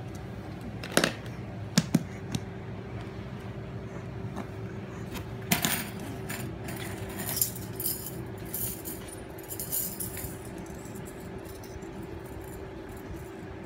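Thin metal rings and small toys knocking and jingling on a hardwood floor as a baby handles them: a few sharp knocks in the first couple of seconds, then bouts of light metallic jingling, over a steady faint hum.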